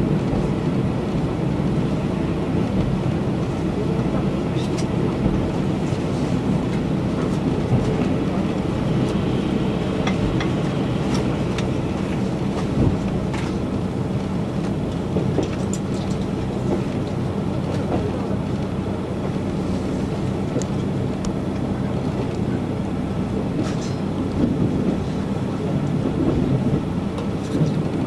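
A KiHa 185 series diesel railcar running at speed, heard from inside the passenger cabin: a steady drone of the diesel engine and wheels on the rails, with scattered clicks from rail joints.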